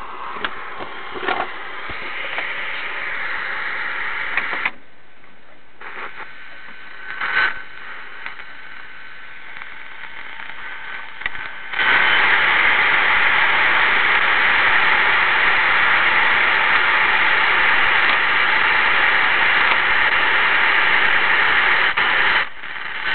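Radio static hiss from a homebuilt 2-metre FM receiver (a Ramsey receiver in a Heathkit Lunchbox case), with no station coming through. The hiss drops lower about five seconds in, with a few clicks, then becomes much louder and steady at about twelve seconds, and drops away shortly before the end.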